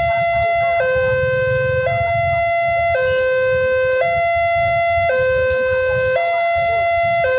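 Electronic warning alarm of an Indonesian railway level crossing, sounding from the horn loudspeaker on the signal pole: a steady two-tone high-low signal, each note held about a second, which warns that a train is approaching and the barriers are closed. A low engine rumble from the waiting motorcycles runs beneath it.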